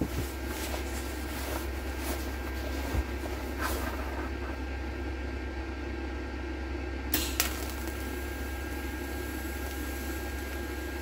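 TIG (GTAW) welder running: a steady electrical hum with a thin whine and hiss. Two sharp clicks come about seven seconds in, after which the hiss grows brighter.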